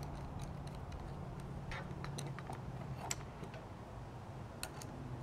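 Faint clicks and taps of metal antenna parts being handled and fitted together while a Super Antenna whip and its extension rods are assembled. There is a sharper click about three seconds in and another near the end.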